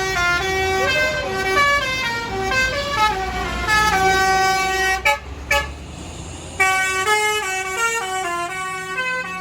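A bus's Basuri telolet horn, a multi-trumpet electric horn, playing a tune of short stepped notes. It breaks off about five seconds in, when two short knocks are heard, then picks the tune up again about a second and a half later, over the low running of vehicle engines.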